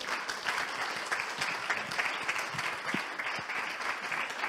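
Congregation applauding: many people clapping together in a steady, dense applause.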